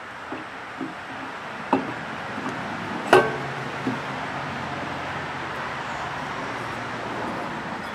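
A few scattered metal clinks and knocks, the loudest a ringing clank about three seconds in, as a steel pulley is worked onto an engine crankshaft. The pulley will not slide over the keyway, which sits too high for its slot.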